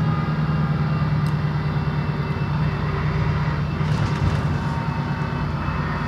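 Alexander ALX400 double-decker bus engine running with a steady low drone.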